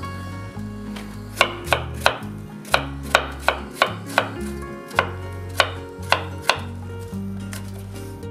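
Kitchen knife chopping apple on a wooden cutting board: about fifteen sharp knocks in an irregular rhythm, two to three a second, from about a second in until past six seconds.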